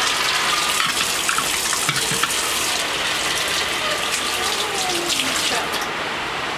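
Tap water running steadily into a sink, splashing as a utensil is rinsed under it.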